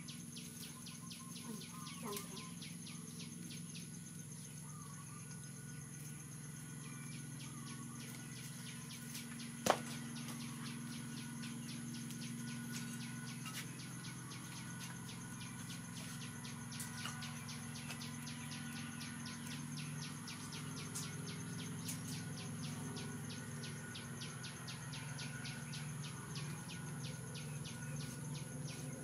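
Outdoor insect chorus: a steady high-pitched trill with a fast, even pulsing, over a low steady hum. A few faint bird chirps come near the start, and there is one sharp click about ten seconds in.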